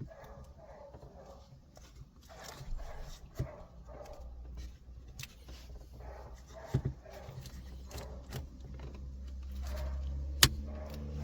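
Hard plastic interior trim being handled and pressed back into place, with several sharp clicks and knocks, the loudest near the end. Short whining calls sound in the first seconds, and a low hum builds in the last few.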